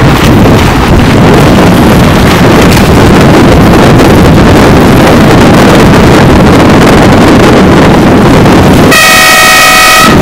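Steady wind rushing and buffeting on the microphone over open water. About nine seconds in, a long air-horn blast sounds, the race committee's signal at a dinghy regatta start.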